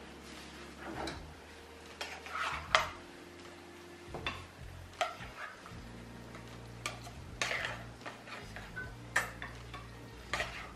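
Spatula scraping and clinking against a frying pan as fried eggs are served onto plates, a series of scattered clinks and scrapes. The sharpest clink comes about three seconds in.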